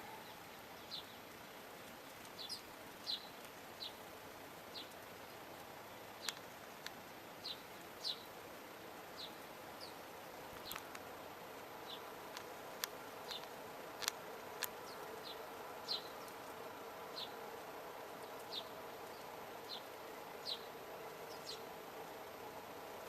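Small garden birds giving short, high chirps, irregularly about once a second, with a few sharp clicks and a faint steady drone underneath.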